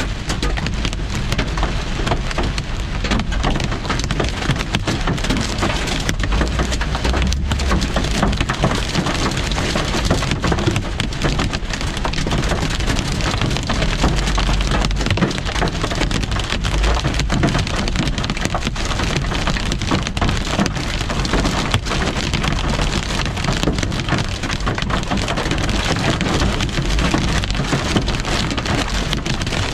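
Heavy rain and hail pelting a car's roof and windshield, heard from inside the car: a loud, dense, steady clatter of countless small impacts.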